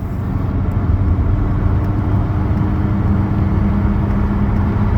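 A car being driven along a road: steady engine and tyre noise with a low rumble.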